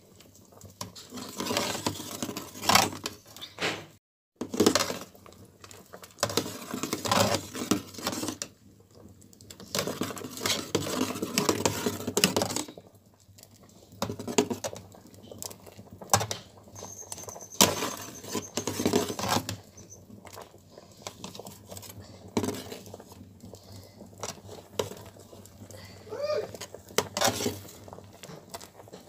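Metal spoon stirring and scraping in a metal pot of thick ogbono soup, in irregular bursts of clatter with quieter pauses between.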